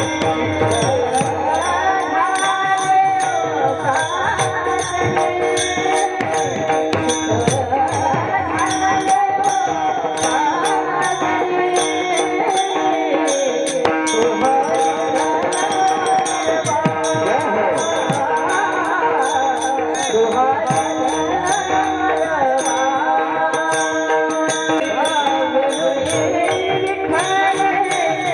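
Devotional kirtan music: a voice sings over held accompanying tones, and small hand cymbals strike a steady beat.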